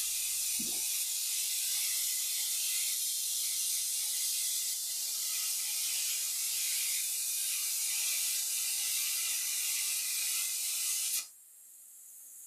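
CNC plasma torch cutting sheet steel: a loud, steady, high hiss that cuts off suddenly about eleven seconds in as the cut ends.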